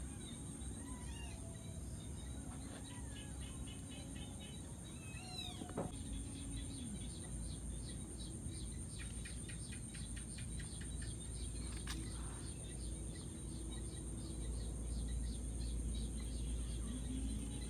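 Outdoor garden ambience: a steady high-pitched insect chorus, with birds chirping over it and a rapid ticking trill in the middle.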